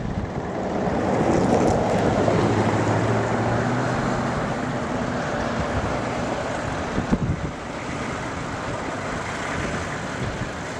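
Strong wind blowing on the microphone as a steady rushing noise. A low, steady engine hum from a vehicle joins it for about three seconds in the first half.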